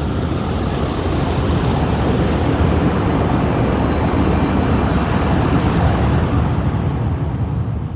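Synthesized futuristic sci-fi sound effect: a dense, steady noise heavy in the low end, with a vehicle-like quality, that builds slowly and eases off near the end.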